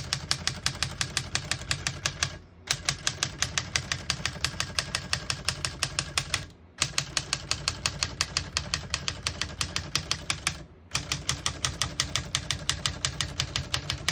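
1960 Smith-Corona Skyriter manual portable typewriter being typed quickly across all its keys, about seven key strikes a second, in four runs broken by short pauses.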